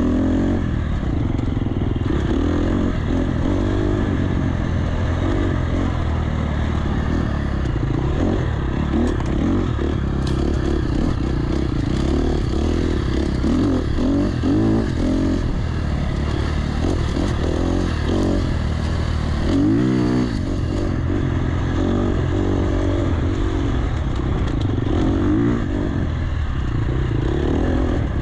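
Dirt bike engine running under constant throttle changes, its pitch rising and falling as it is ridden over rough trail, with frequent knocks from the bike over the terrain.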